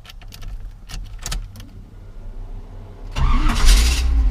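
A few light clicks, then about three seconds in the 1984 Chevrolet Silverado's carbureted 5.7-liter V8, fitted with Hooker headers and a Flowmaster-type exhaust, fires right up, revs briefly and settles into a loud idle.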